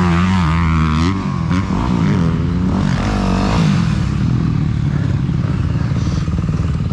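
Single-cylinder 250cc four-stroke motocross bike engine being ridden, its revs rising and falling through the first few seconds, then holding steadier, with a brief clatter about a second in.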